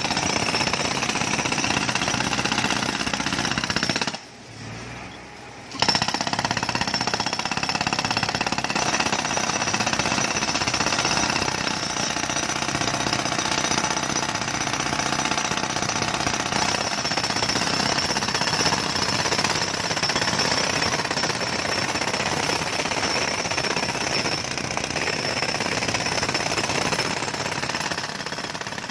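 Jackhammer breaking up a road surface, hammering continuously. It stops for a second or two about four seconds in, then starts again.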